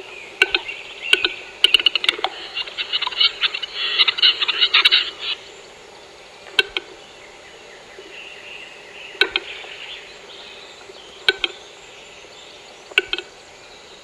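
Western capercaillie cock's display song: a run of sharp double clicks that quicken over about two seconds, running into a few seconds of rapid scratchy notes (the whetting phrase). After that, slow double clicks come two to three seconds apart as the next phrase begins.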